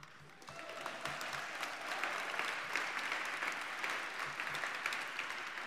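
Audience applauding, building about half a second in and fading near the end.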